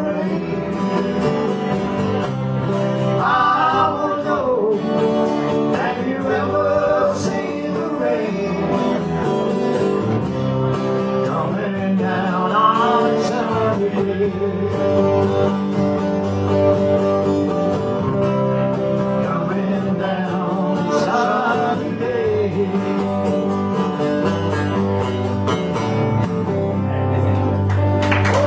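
Live band playing a country-rock song: a man sings in short phrases over strummed acoustic guitar, electric guitar and bass guitar.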